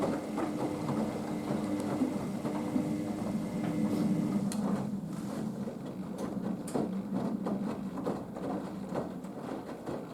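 Haier HWD 120 washer-dryer in its main wash: the drum turning with wet laundry tumbling and water sloshing, over the motor's hum. About four seconds in the motor's higher hum stops and a lower one carries on, as the drum changes its turning.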